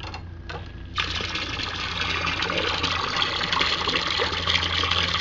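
A stream of water from a hose pours and splashes into a plastic tub of water, starting about a second in. It is pushed by a small electric pump that runs only while its push button is held. A low steady hum runs underneath.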